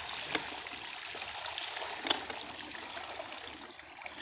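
Water pouring and trickling out of a plastic-bottle shrimp trap lifted from a river, the flow slowly thinning. Two light knocks, one just after the start and one about two seconds in.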